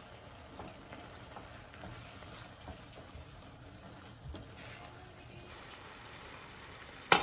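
Pasta in tomato sauce sizzling in a frying pan as it is stirred with a spatula, with small scraping clicks. A single sharp click near the end.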